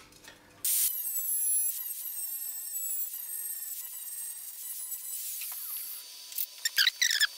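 Angle grinder with an abrasive disc grinding down a welded, built-up steel block. It starts suddenly about a second in and runs with a high whine over the grinding hiss, then fades out near the end.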